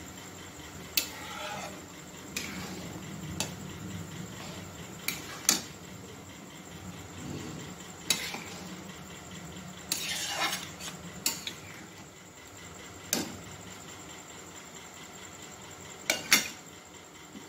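Flat metal spatula stirring ghugni in a steel pan, knocking and scraping against the pan a dozen or so times, with a longer scrape about ten seconds in. Under it runs the low steady bubbling of the curry simmering.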